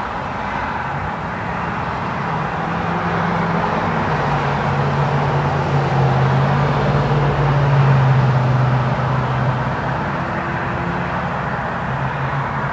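Light road traffic: a steady wash of car tyre and engine noise. One vehicle's engine hum grows louder to a peak about eight seconds in, then fades.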